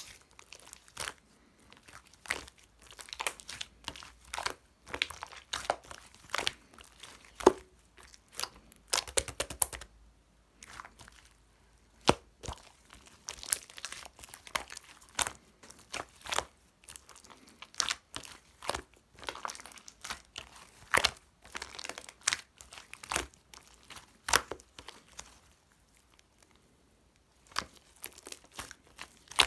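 Hands squishing, poking and stretching slime, giving irregular sharp pops and crackles, with short pauses about ten seconds in and again near the end.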